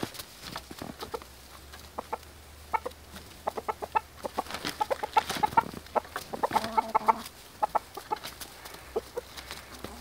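Chickens clucking: a run of short clucks that picks up about two seconds in, with one longer drawn-out call a little past the middle.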